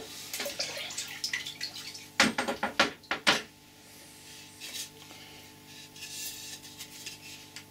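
Water running and splashing as a steel axe head is rinsed off under a tap, with a cluster of loud sharp knocks about two to three seconds in, then quieter running water.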